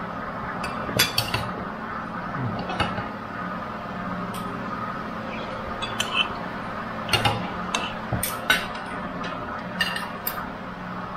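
Cutlery clinking against plates and bowls as people eat, about ten light, scattered clinks over a steady low hum.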